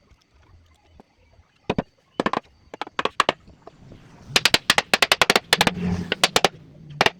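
A series of sharp knocks in woodwork: a few single strikes, then a fast run of about six a second from about four seconds in, ending about a second and a half later.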